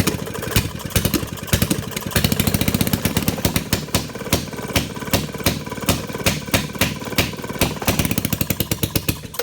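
1929 Maytag washing-machine engine, a single-cylinder two-stroke, running fast with sharp, rapid firing beats in a slightly uneven rhythm. The owner says the engine runs like a hit-and-miss motor, missing as if governed, with its speed set by the coil and points. The sound cuts off suddenly at the end.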